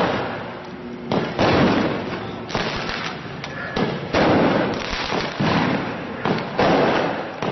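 A string of loud, sudden bangs, about one a second, each dying away with a long echoing tail.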